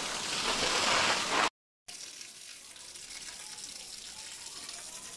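Water gushing steadily into a concrete bear pit. After about a second and a half it cuts off abruptly, and a much fainter steady hiss follows.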